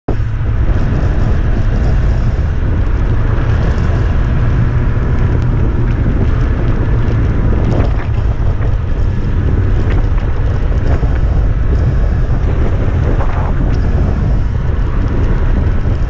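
Wind buffeting the microphone of a snowmobile under way, with its engine running steadily underneath. The low rumble of the wind is the loudest part.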